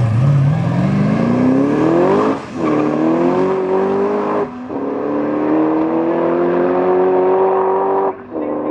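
Drag-race launch of a GM LS V8-powered Ford Granada and a turbocharged Hayabusa-engined Dax Rush kit car, accelerating hard away down the strip. The engine note climbs steeply from low revs and cuts out briefly for upshifts about two and a half, four and a half and eight seconds in, rising again after each shift.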